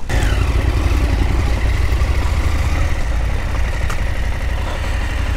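KTM Adventure R motorcycle engine idling steadily.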